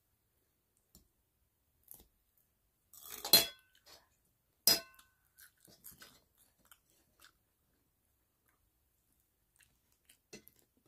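A plastic fork clinking against a dinner plate, twice about three seconds in and a second and a half apart, the plate ringing briefly after each. Faint scattered clicks and crackles follow as the crisp tostada shell is picked at on the plate.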